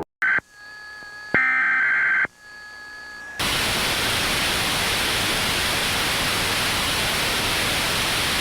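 An electronic warning broadcast cuts off abruptly. A click and a few seconds of steady electronic tones follow, louder for about a second in the middle, and then loud, steady white-noise static sets in about three seconds in, like a lost broadcast signal.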